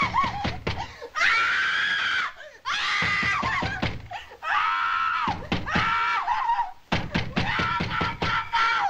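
A woman screaming over and over in terror: about five long, high screams, each about a second long, with short breaks between them.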